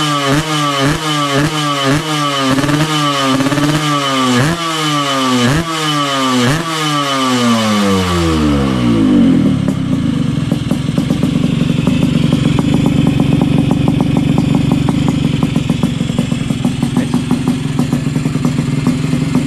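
Yamaha RX-King two-stroke single blipped about eight times in quick succession, roughly once a second, through a hand-made plate-steel kolong (under-slung expansion chamber) exhaust, then the revs fall away and it settles into a steady, rapid-popping idle for the second half.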